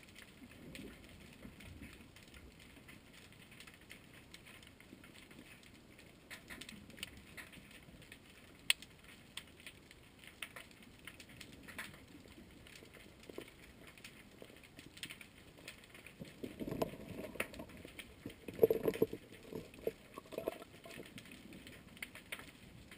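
Underwater recording: sparse crackling clicks throughout, then a few seconds of louder, muffled knocks and rumbling a little past two-thirds of the way in.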